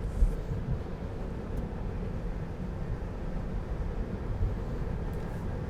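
Steady road and tyre noise heard inside the cabin of a Tesla Model 3 electric car driving along.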